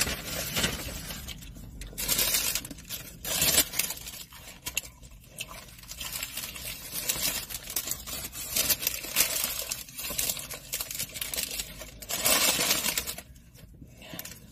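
Fast-food paper wrappers and packaging crinkling and rustling as they are handled, in irregular bursts with quieter stretches between.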